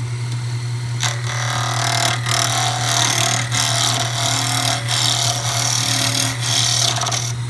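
Wood lathe motor humming steadily while a hand-held turning chisel cuts a spinning maple thimble blank. The hissing, scraping cut starts about a second in, breaks off briefly a few times, and stops just before the end.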